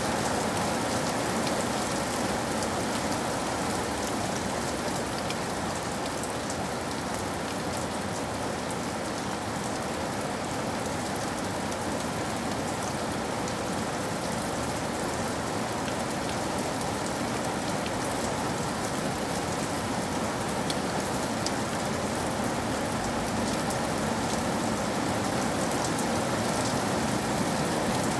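Steady rain falling on hard surfaces, an even hiss with scattered drop ticks.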